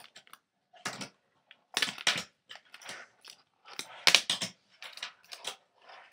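Fingerboard run by hand over a laminate floor and a ramp of stacked plastic DVD cases, giving a series of sharp clacks and short wheel rolls as the board lands and hits the cases.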